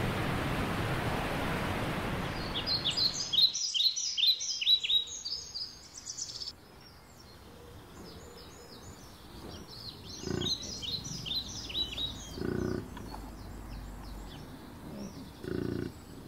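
Rushing waterfall for the first few seconds, cut off sharply about three and a half seconds in. Small birds then chirp in quick runs of short, high, down-sweeping notes, twice, with three short low sounds in the later part.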